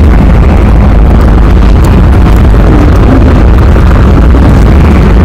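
Vehicle on the move: a loud, steady rumble of engine and road noise, heaviest in the low end.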